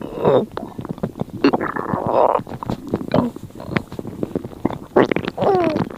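Human stomach growling and gurgling: an irregular string of wet squelches and clicks with short squeaky gurgles that slide up and down in pitch, heaviest about two seconds in and again near the end.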